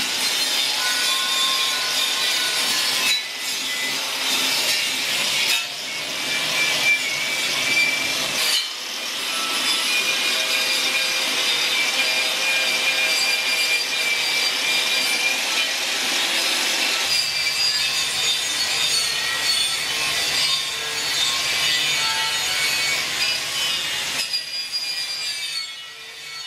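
A 4-inch angle grinder with a wire brush scouring burnt powder coat off the inside of a steel truck wheel rim: a steady high whine over harsh scraping. It dips briefly three times and dies away near the end.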